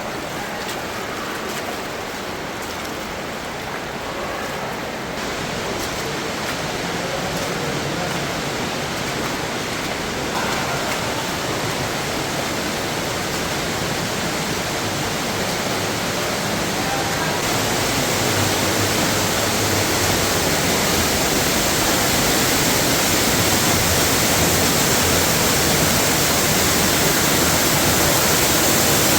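Rushing water of a waterfall, a steady noise that grows gradually louder, turning brighter and more hissing about two thirds of the way through.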